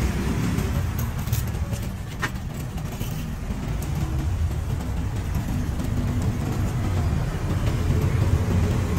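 Steady low rumble of passing road traffic, with a couple of faint knocks about one and two seconds in.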